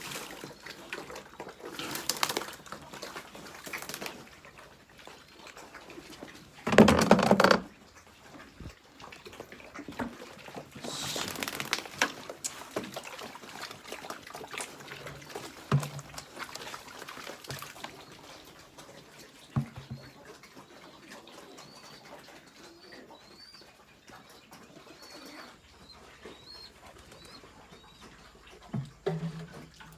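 Pigeons cooing in short low calls, with a loud burst of noise lasting under a second about seven seconds in and faint high chirps later.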